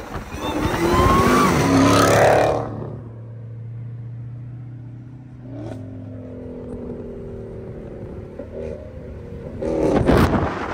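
Supercharged V8 of a 2023 Dodge Challenger Hellcat with an MBRP race exhaust, accelerating hard past with loud, rising revs. The revs then drop to a steady drone heard from inside a following car, and a second burst of hard acceleration comes near the end.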